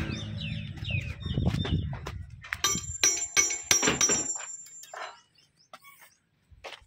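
Hand tool clinking against the metal pulley and shaft fittings of an old diesel oil engine: a quick run of sharp metallic clinks that ring, about two to four seconds in. A low hum under the first few seconds fades out, and small birds chirp.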